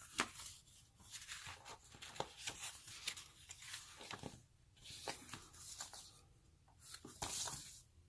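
Paper and cardboard board-game components being handled: sheets and booklets sliding and rustling, with light taps and clicks.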